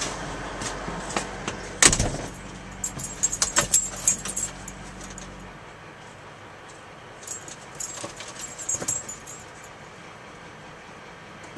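Low, steady hum of an idling truck engine that cuts off suddenly about five and a half seconds in. There is a sharp knock about two seconds in, and two bouts of light metallic jangling, one around three to four seconds and one around eight to nine.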